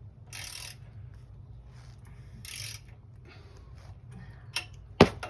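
Ratchet wrench clicking in short runs as exhaust clamp nuts are tightened, then a few sharp metallic clinks, the loudest about five seconds in.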